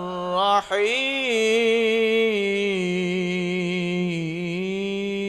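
A man reciting the Quran in melodic tajweed style, drawing out a long, ornamented note with a wavering pitch on "huwa ar-Rahman ar-Raheem". The voice breaks off briefly about half a second in, then swells up again and holds.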